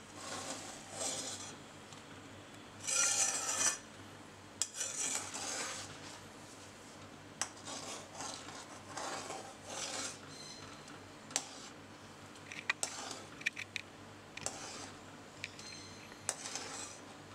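A spatula stirs simmering milk and scrapes the bottom and sides of a metal pan as the milk reduces on a low flame. The scraping comes in irregular strokes, with a few light clicks of the spatula against the pan.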